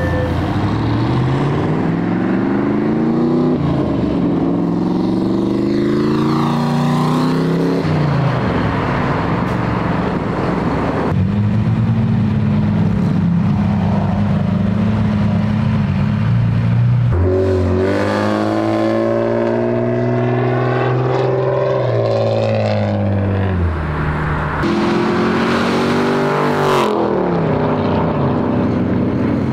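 Cars accelerating past one after another, their engines rising in pitch through each gear and dropping at every upshift.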